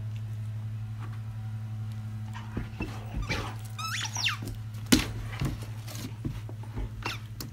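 A goldendoodle chewing and shaking a plush squeaky dog toy: the squeaker squeals in a few quick rising and falling squeaks about three to four seconds in, among irregular knocks and chomps of the toy and paws on the floor. A steady low hum runs underneath.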